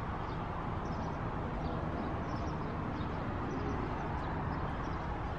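Steady outdoor background noise, like distant traffic, with faint scattered bird chirps.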